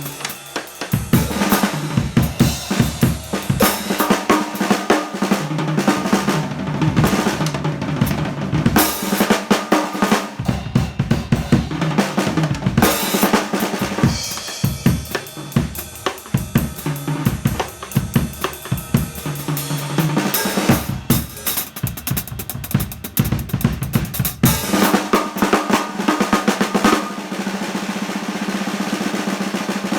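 Drum kit played freely: kick drum, snare and hi-hat in busy, uneven patterns with fills. Near the end it turns into a fast, steady drum roll.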